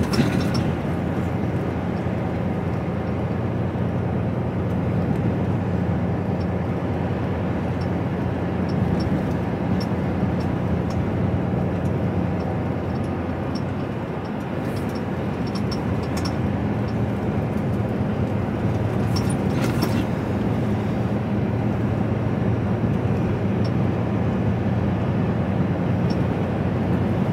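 HGV lorry's diesel engine and road noise droning steadily inside the cab while driving, easing slightly about fourteen seconds in.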